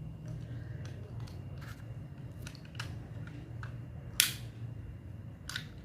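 Small plastic clicks and knocks from handling a remote-control toy truck while its battery is fitted and its cover pushed shut, with one loud sharp click a little past four seconds in and another near the end, over a low steady hum.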